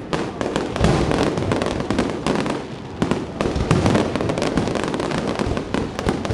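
Fireworks display: a rapid, continuous barrage of bangs and crackles, easing briefly about two and a half seconds in before picking up again.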